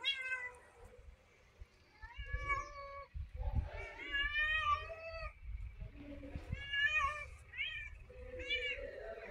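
A domestic cat meowing again and again, about six separate calls a second or two apart. One near the middle is drawn out longer than the rest.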